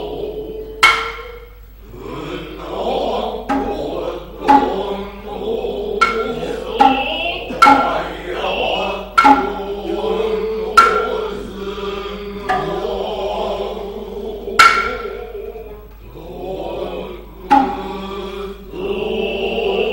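Noh music: sharp, ringing hand-drum strikes at irregular intervals of one to two seconds, with long drawn-out male vocal calls and chanting between them, and a high held flute note near the end.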